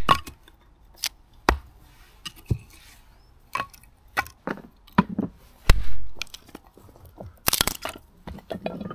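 An axe and then a hatchet splitting firewood on a stump chopping block: a series of sharp, uneven knocks as the blade bites and the wood cracks apart, with split pieces clattering down. The loudest blows come about six seconds in and again about a second and a half later.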